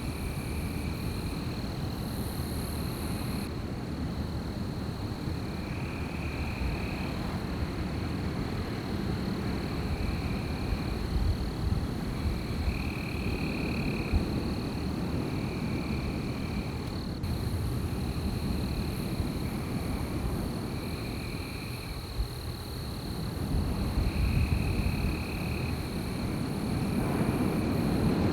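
Wind blowing in a night forest: a steady low rumble that swells near the end. Over it runs a constant thin high trill, with a short call repeating every second or two.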